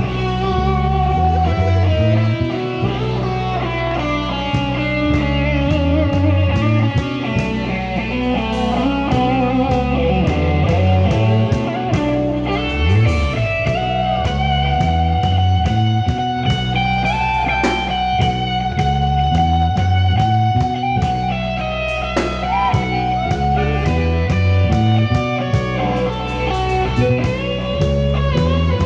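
Live band jam: an electric guitar plays a lead line with bent notes over a moving bass line and a drum kit.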